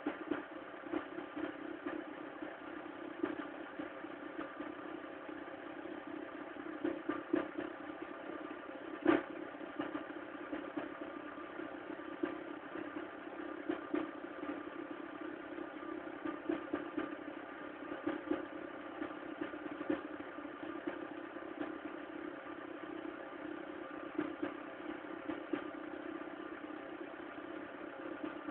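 Mk3's 1.4 petrol engine idling with an uneven, clattering 'tractor' sound: small irregular knocks throughout, and one sharp, louder knock about nine seconds in. This is the bad engine noise the owner is showing.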